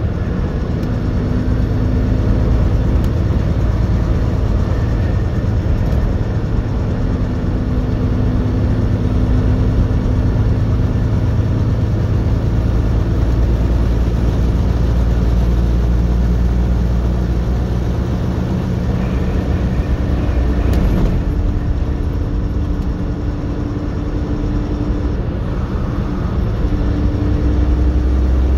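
Steady drone of a big-rig truck's diesel engine with tyre and wind noise, heard from inside the cab while cruising at highway speed; a low, even engine hum runs under it throughout.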